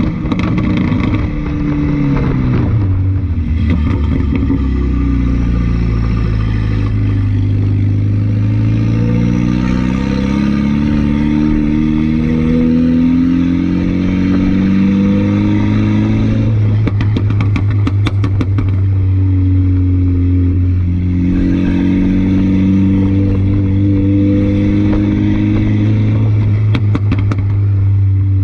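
A 2015 Mini Cooper S (F56) with a catless, turbo-back straight-pipe exhaust, running loud. Its 2.0-litre turbocharged four-cylinder note drops at first, then climbs slowly under acceleration twice. Bursts of exhaust pops and crackles come about two-thirds of the way in and again near the end.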